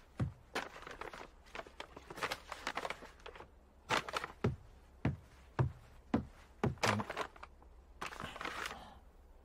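Foley of soft, irregular thuds like footsteps, a dozen or so, with light rustling. Near the end a paper shopping bag rustles as it is handed over.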